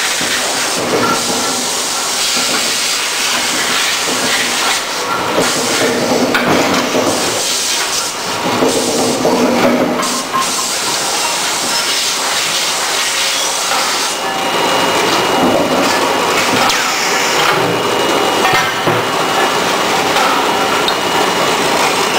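Hot-forging machinery for socket head cap screws running loud: a constant hissing industrial din with occasional knocks.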